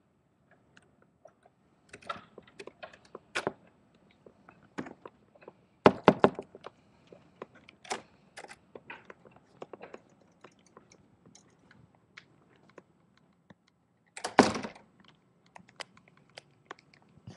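Handling noise from a handheld recording device being carried and moved: scattered clicks, taps and knocks, with a burst of them about six seconds in and one louder, longer knock near the end.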